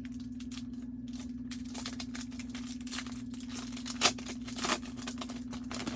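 Trading card packs and cards being handled: a run of crisp crinkles and rustles of wrappers and card stock, with two louder crackles a little after four seconds in, over a steady low electrical hum.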